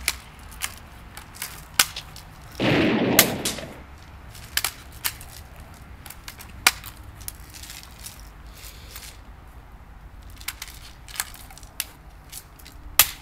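Toy gun clicking and snapping as it is handled and fired: about a dozen sharp, irregular clicks, with a short burst of noise about three seconds in.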